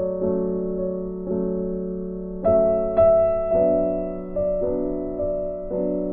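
Background music: a piano playing slow, gentle chords, each struck and left to fade before the next.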